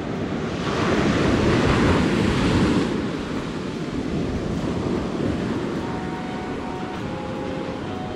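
Surf breaking and washing up a sandy beach, swelling to its loudest about a second in and easing off after about three seconds into a steady wash.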